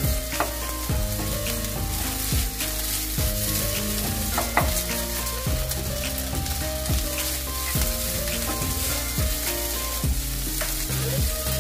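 Chunks of beef sizzling as they fry in a non-stick pan, stirred with a wooden spatula that scrapes and knocks against the pan about once a second. The beef is well browned and nearly done.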